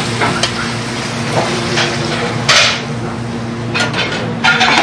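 Veal sorrentina sizzling in a sauté pan as fresh tomato sauce is spooned over it, with a metal spoon scraping and knocking against the pan. There is a sharp knock about halfway through and a short clatter near the end, over a steady low hum.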